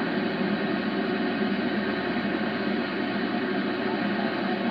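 Grundig Satellit 750 shortwave receiver on the 20-metre band in single-sideband mode, giving out steady static through its speaker with no station audible.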